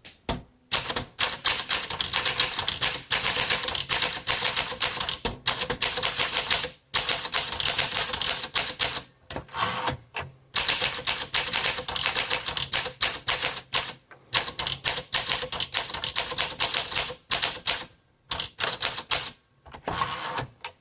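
1936 Smith Corona Standard flat-top manual typewriter being typed on at a steady pace: a rapid run of sharp key and typebar strikes, broken by a few short pauses.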